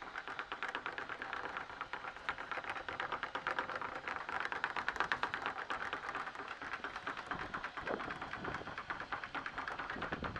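Anchor chain clattering link by link over the yacht's anchor windlass as the anchor is hauled up: a rapid, steady run of clicks that loosens near the end.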